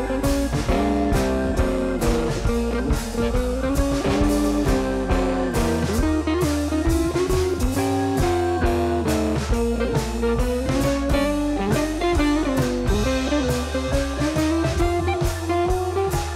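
Instrumental background music: a guitar melody with bending notes over bass and a drum kit beat.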